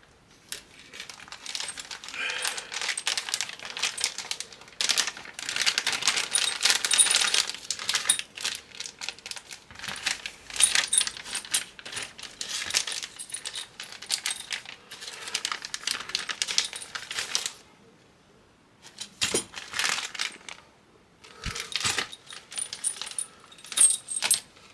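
Computer parts and small metal pieces being handled close up: dense bursts of clicks, rattles and light metallic jingling. The bursts break into shorter separate clatters with brief pauses near the end.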